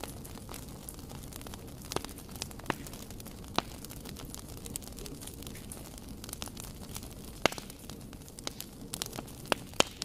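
Wood log fire burning: a steady low noise of the flames with irregular sharp crackles and pops from the burning logs, the loudest pops about a third of the way in and about three-quarters through, and a quick run of them near the end.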